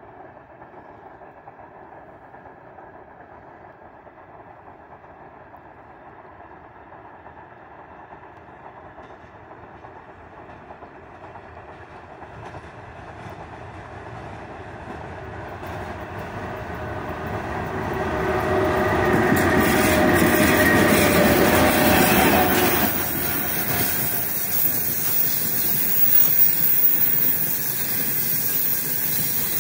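3ES5K Ermak electric locomotive hauling a freight train, approaching with a hum that grows steadily louder and is loudest as it passes, about twenty seconds in. It is followed by the steady rushing roll of open freight wagons with occasional wheel clatter.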